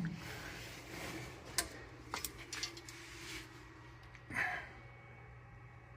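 Faint clicks and light knocks from a wrench being worked on a rusted fender bolt, with a short breath about four and a half seconds in.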